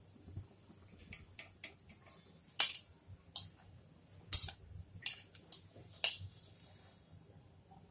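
Metal kitchen tongs clicking and tapping against a frying pan as bread slices are lifted out and laid in: about ten sharp clicks, the loudest about two and a half seconds in.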